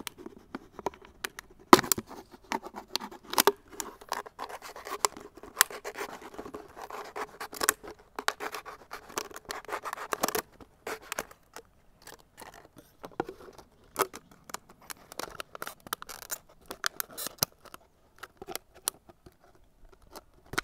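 Scissors cutting through a thin plastic water bottle: a quick run of snips with crackling plastic, densest in the first half. Then come sparser clicks and crinkles as the cut plastic pieces are handled.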